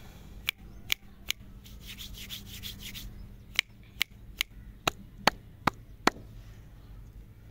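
Fingertips tapping on wrapped lollipops: sharp taps, three close together, then a brief rustle of the wrappers, then seven more evenly spaced taps, about two and a half a second.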